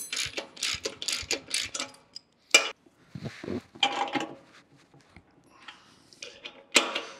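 Ratchet wrench clicking in quick back-and-forth strokes, about three a second, as the bolts holding a forge's hand blower to its mounting arm are tightened; the clicking stops about two seconds in. After it come a few separate metal clicks and knocks, the loudest near the end.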